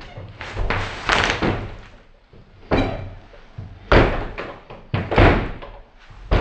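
A door banging: loud slams about a second apart in the second half, with noisy scuffing before them.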